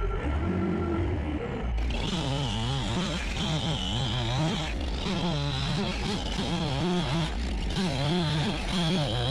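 John Deere skid steer's engine running, its speed rising and falling again and again. A steady high whine joins it about two seconds in.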